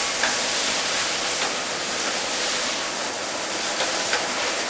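ET 22R6 tray-sealing packaging machine running: a steady hiss with a few faint light clicks.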